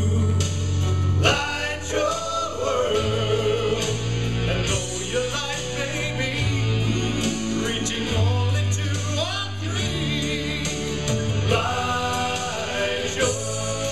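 Gospel-style song with several voices singing over a bass line that changes note every second or two.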